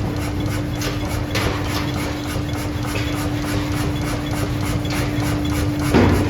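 Forging-shop machinery running with a steady hum and low rumble, with faint scattered metal clinks and one louder knock near the end.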